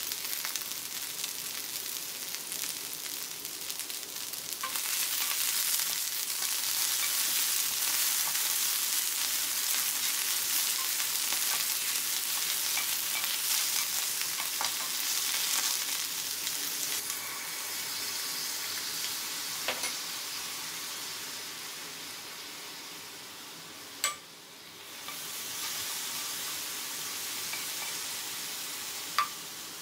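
Napa cabbage, green onion and cocktail shrimp sizzling as they are stir-fried in a nonstick pan, with a spatula stirring and scraping the pan; the sizzle gets louder about four seconds in. Near the end, after a sharp click, sesame seeds and soy sauce sizzle as they are stirred in the pan for a dressing.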